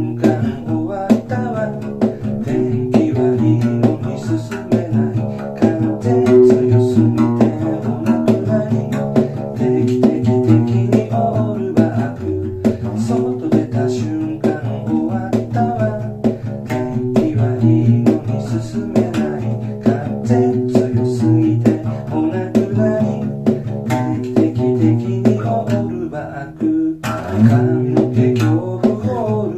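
Instrumental music without singing: a plucked string instrument playing a steady, rhythmic tune over sustained low bass notes.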